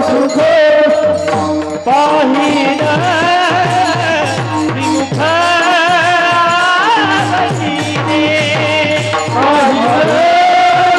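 Marathi devotional bhajan music: a voice holding long, wavering melodic notes over a steady rhythm of drum strokes and small clashing hand cymbals.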